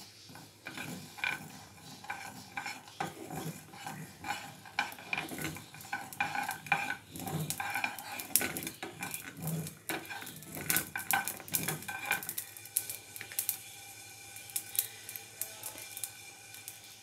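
Wooden spoon stirring mustard seeds as they dry-roast in a nonstick frying pan, the seeds scraping and rattling over the pan in quick, irregular strokes. The stirring eases off about twelve seconds in.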